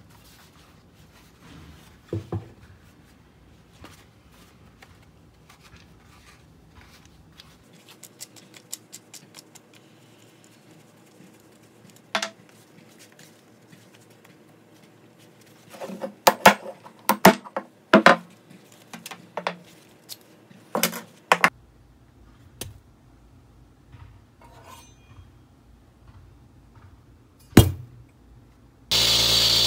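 Scattered metal clinks, taps and knocks as an old hand saw's blade and wooden handle are worked apart by hand, with a busy run of sharp clinks in the middle. Near the end a power tool starts and runs steadily.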